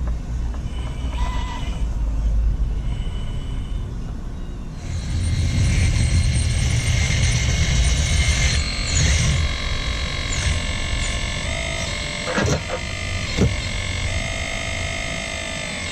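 Radio-controlled excavator running: a low rumble at first, then about five seconds in its electric drive starts a steady, many-toned whine that shifts in pitch several times as it moves.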